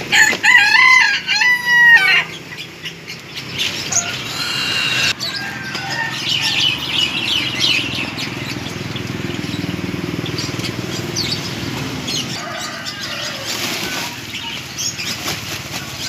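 A rooster crows once near the start, a single call of about two seconds and the loudest sound here. After it come a few short bird chirps, then steady rustling and scraping as cardboard egg trays are shaken and handled over a box of live crickets.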